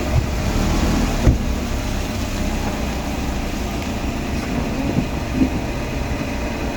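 Steady low rumble of a car engine running.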